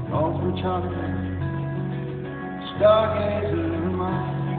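Live band music with a male voice singing over steady guitar and band accompaniment; a sung phrase comes in loudest about three seconds in.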